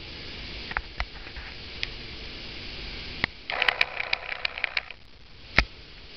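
Handling noise from a handheld camera as it is moved: scattered clicks, a second-long patch of rapid rattling clicks past the middle, and one sharp knock near the end, over a steady hiss.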